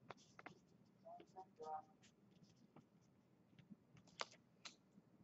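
Near silence with faint, scattered clicks and taps.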